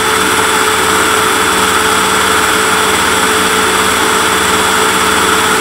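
Loud, steady motor drone at one unchanging pitch.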